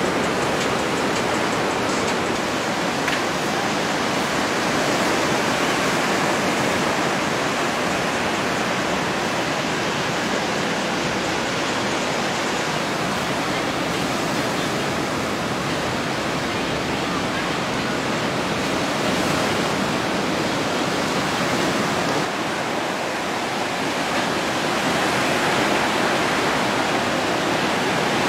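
Ocean surf breaking, a steady rushing wash of waves that swells a little near the end.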